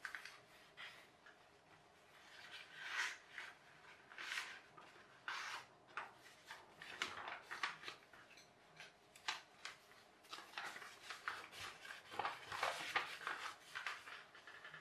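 A sheet of paper being folded and creased by hand: irregular rustles and crinkles as the paper is turned and pressed flat, with fingers sliding along the folds.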